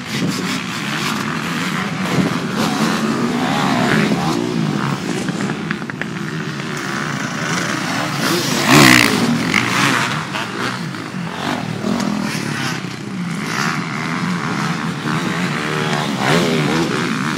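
Several motocross bikes riding a dirt track, their engines revving up and falling off through the corners, with one bike passing close near the end. A brief loud burst of noise about halfway through.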